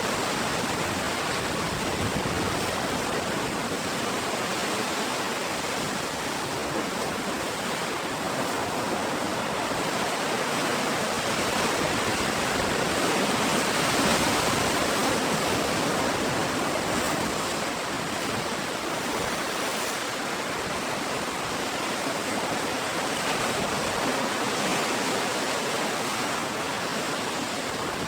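Ocean surf washing steadily, with a broad continuous rush that swells gently to a peak about halfway through, then eases off.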